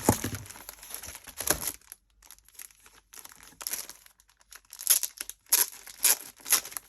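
Packaging crinkling and paper rustling as a pack of designer series paper is handled. It comes in irregular bursts, busiest in the first second or two, with several sharp crinkles near the end.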